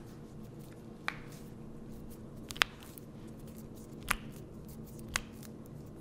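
Joints in a patient's hand popping during a chiropractic adjustment: four sharp cracks about a second and a half apart, the second one the loudest.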